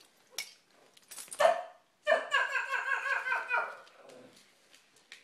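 Small dog barking: one short bark about a second in, then a quick run of high barks lasting nearly two seconds.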